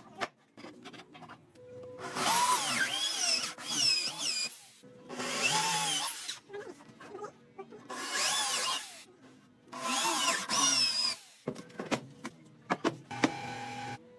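Power drill running in four bursts of one to three seconds, its whine rising and falling in pitch as it bites into wood, followed by a few sharp clicks near the end.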